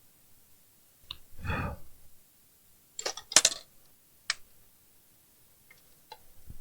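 A dull thump about a second in, then several sharp clicks, the loudest pair around three seconds in, from a VHS video recorder being operated and handled.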